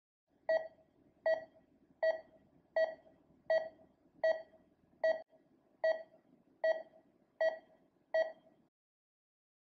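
Patient monitor pulse tone: eleven short electronic beeps of the same pitch, evenly spaced at about 78 a minute, then stopping.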